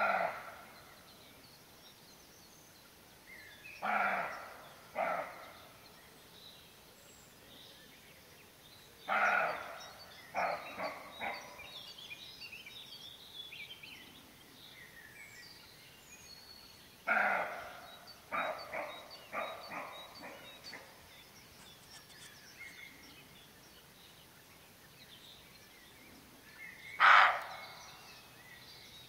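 Roe deer doe barking in alarm: short, hoarse, dog-like barks in groups, a single bark at the start, a pair, a run of four, a run of five, and one loud bark near the end. This is the roe deer's warning call at an intruder it has noticed. Faint birdsong behind.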